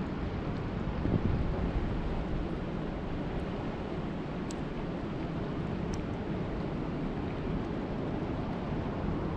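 Steady low rushing noise of lake water, with wind buffeting the microphone. Two faint ticks come about four and a half and six seconds in.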